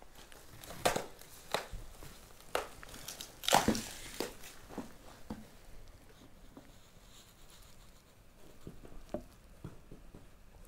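Footsteps crunching over ground litter, with irregular sharp cracks and crackles, the loudest in the first half and fainter, scattered ones later.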